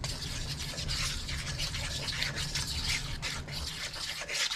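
A utensil stirring and scraping wet flour dough around a stainless steel mixing bowl in quick, continuous strokes, with a low steady hum underneath.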